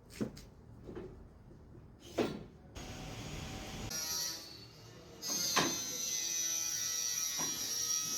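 A few knocks, then a small electric motor starts about five seconds in and runs steadily with a high whine.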